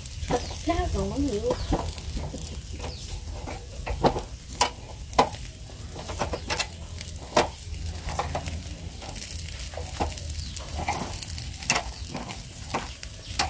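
Metal tongs clicking and scraping against a wire grill rack, in sharp irregular clicks, as pig's head and okra are turned over charcoal, with light sizzling from the grilling meat.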